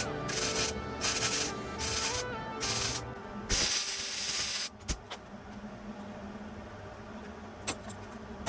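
Hand sanding or scuffing strokes on a metal car body panel, evenly spaced at about one and a half a second, then one longer stroke a little past the middle, over background music; after that only the music goes on, fainter.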